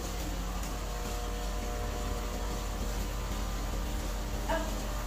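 Steady hiss and hum of aeration running in live-fish tubs: air pumps driving hoses that bubble the water. A short sound breaks through about four and a half seconds in.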